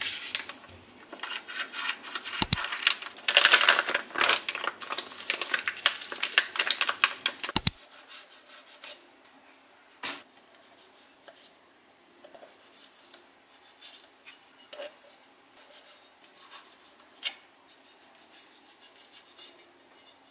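Kitchen food-preparation handling: for the first eight seconds or so, loud rubbing and scraping with sharp clicks, then quieter occasional taps and clinks of utensils.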